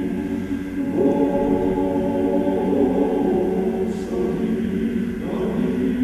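Male Orthodox church choir singing a cappella in held chords, moving to a new chord about a second in and again near the end.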